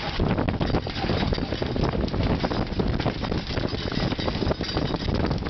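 Strong wind buffeting the microphone on an open boat deck, a constant rushing rumble that swells and dips in gusts.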